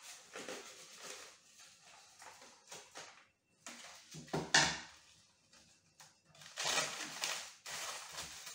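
Paper and foil wrappers crinkling and rustling as bars of dark chocolate are unwrapped by hand, in irregular spurts that grow busier near the end, with a brief knock about four seconds in.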